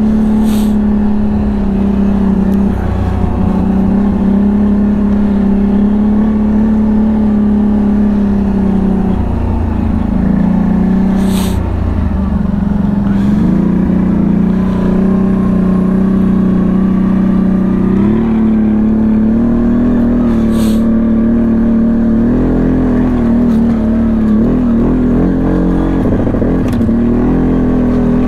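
CF Moto CForce 1000 ATV's V-twin engine running at a steady throttle. Its pitch dips and picks up again around ten to twelve seconds in, then settles a little higher after about eighteen seconds. Three short sharp knocks are heard along the way.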